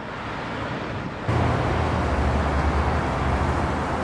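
Outdoor street ambience: a steady rumble and hiss of road traffic, which steps up suddenly louder about a second in.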